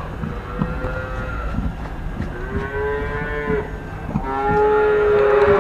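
Calves bawling: about three drawn-out moos, each a second or more long and fairly steady in pitch. The last one starts about four seconds in and is the longest and loudest.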